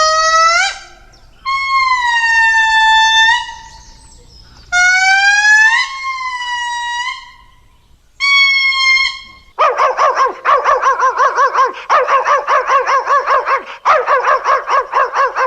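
A dog howling and whining in four long, pitched calls, some rising in pitch. From about two-thirds of the way in, a rapid, pulsing animal call takes over, several pulses a second.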